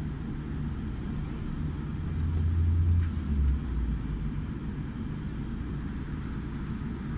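Low rumble of a Boeing 787-10 airliner heard from inside the passenger cabin, swelling louder about two seconds in and easing back after three and a half seconds.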